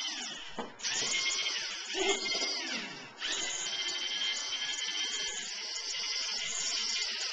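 LEGO Mindstorms NXT robot's electric servo motors whining as it drives and works its attachments. The pitch rises and falls in short runs with brief pauses, then holds a steady whine for the last few seconds.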